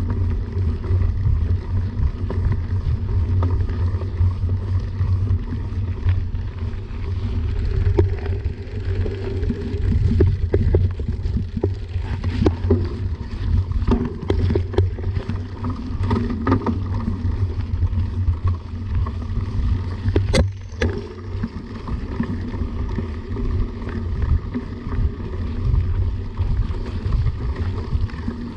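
Mountain bike rolling along a dirt singletrack, heard through a bike-mounted action camera: a steady low rumble of tyre and air on the microphone. Clusters of rattling knocks from the bike over rough ground come in the middle, and a single sharp click about twenty seconds in.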